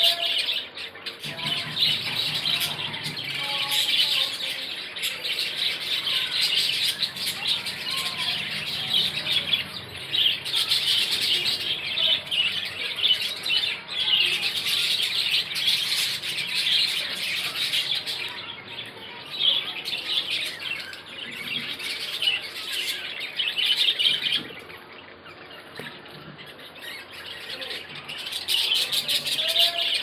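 A colony of budgerigars chattering all at once, a dense mass of overlapping chirps and squawks; the chatter thins out for a few seconds about three-quarters of the way through, then picks up again.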